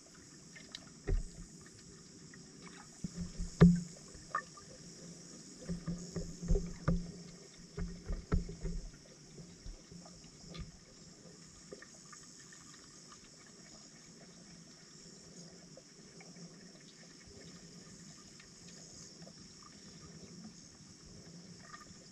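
Muffled underwater knocks and clicks heard through a submerged camera's housing, a dozen or so scattered over the first ten seconds, the loudest about three and a half seconds in; after that only a faint steady hiss.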